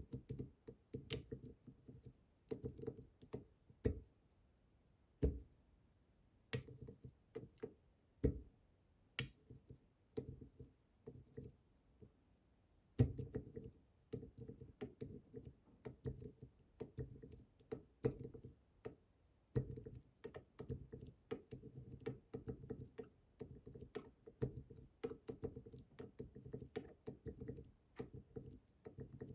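Irregular small metal clicks and taps of a pick pushing the tapered pins of an IZIS Bramah-style pump lock under light tension, the pins pushed down again and again while trying to set them. The clicking gets busier from about halfway through.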